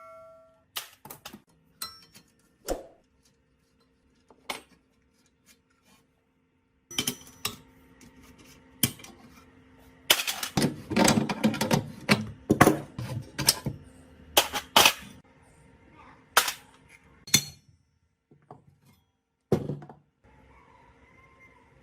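Scattered knocks and clanks of metal meat-grinder parts being handled and tapped, with a dense run of rapid knocks about ten to thirteen seconds in.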